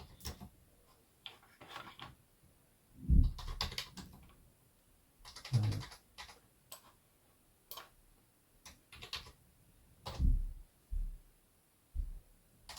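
Computer keyboard being typed on in short, irregular bursts of key clicks, with a few duller thuds among them.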